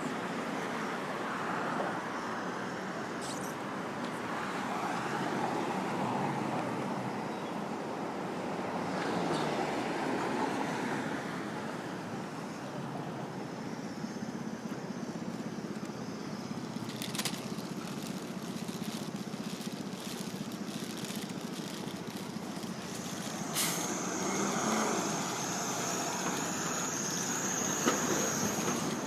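City street traffic: cars and other vehicles passing with a steady rush of engines and tyres. A couple of sharp clicks stand out, and a thin high whine comes in over the last few seconds.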